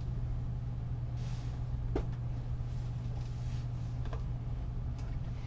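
Room tone: a steady low hum with faint hiss, broken by a few soft clicks, about two seconds in and again near the end.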